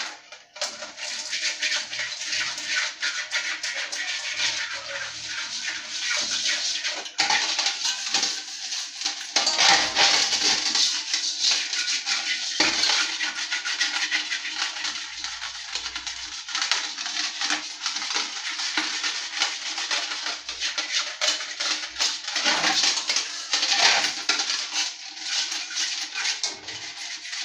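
Hand scrubbing the inside of a brass pot with a cleaning bar or paste: a continuous rasping, scratchy scouring against the metal.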